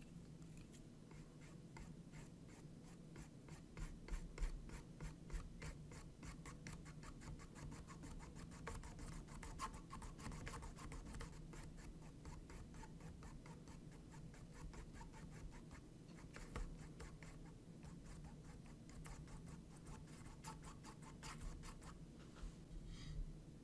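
Flat paintbrush scratching back and forth on a small textured canvas in quick, repeated short strokes, blending the paint.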